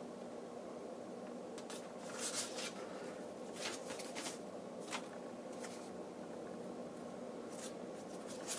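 Paper being handled: a printed booklet and a registration card shuffled between hands, giving several brief, soft rustles over a faint steady hum.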